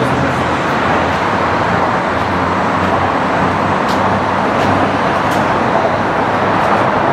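Steady road traffic noise, with a low engine hum running underneath.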